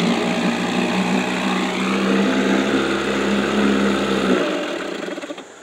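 Johnson Sea Horse 3 hp two-stroke outboard running steadily, then shut off about four seconds in, the engine sound cutting out and dying away within a second.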